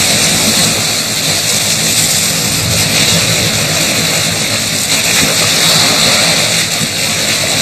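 Sea water rushing and splashing as southern right whales roll and jostle at the surface, a steady loud rush of churning water.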